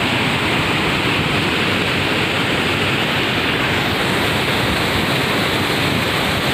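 Muddy floodwater rushing and pouring over a washed-out road edge: a loud, steady, unbroken rush of water.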